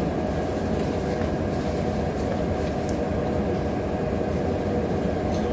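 Steady low rumbling background noise, even in level, with no distinct events.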